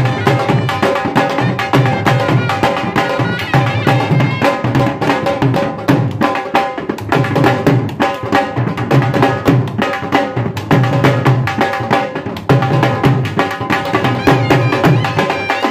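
Dhol drumming, with a sustained melody instrument playing over the beats: Punjabi folk music.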